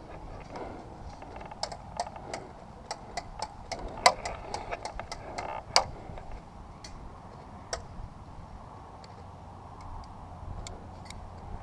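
A run of sharp, irregular clicks and snaps, dense for a few seconds, with the loudest two about 4 and 6 seconds in, then thinning to a few scattered clicks.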